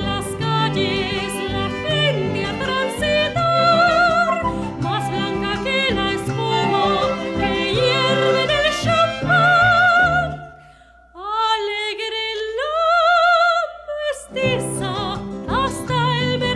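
Live Mexican song: a soprano sings with a wide vibrato over acoustic guitar and a steady low bass line. About eleven seconds in, the accompaniment stops and the voice sings alone for about three seconds, climbing in pitch, before the guitar comes back in.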